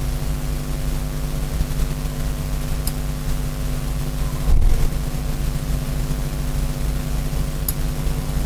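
A steady mechanical hum made of several even tones, with a few faint small clicks and a brief louder knock of handling noise about halfway through.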